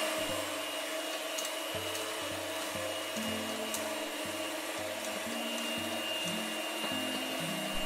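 Electric hand mixer running steadily on its lowest speed with a high, even whine, its beaters working flour into a wet dough as more flour is poured in.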